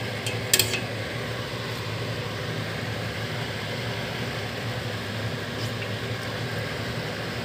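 A metal spoon clinks twice against a stainless steel pot in the first second, over a steady low hum with hiss.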